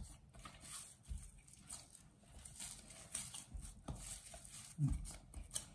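Hands kneading soft, lightly oiled gram-flour dough in a glass bowl: faint, irregular squishing with a few soft thuds.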